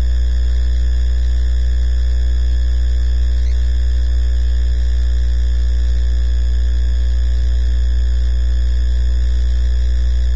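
Loud, steady electrical mains hum with a thin buzz of overtones above it, unchanging throughout.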